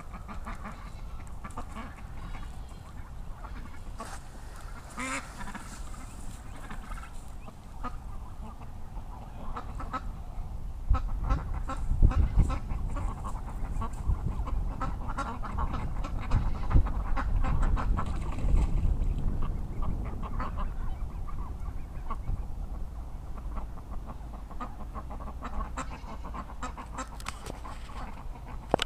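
A flock of domestic ducks and geese calling, short quacks over and over mixed with honks. A low rumble runs through the middle stretch.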